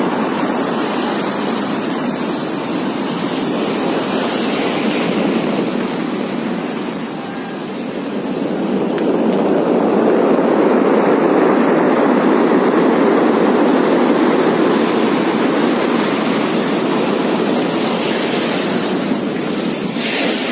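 Rainstorm: heavy rain and strong wind making a steady rushing noise that dips briefly and then grows louder about nine seconds in.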